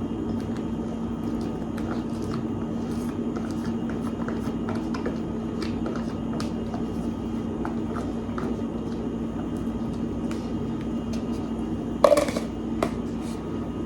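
Diced onion being added to a bowl of diced tomatoes: scattered light clicks and scrapes of a utensil against the bowl over a steady hum, with a louder clatter about twelve seconds in.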